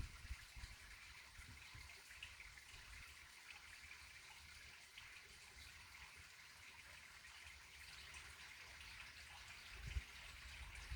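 Faint, steady trickling of stream water, with a brief low rumble of wind on the microphone near the end.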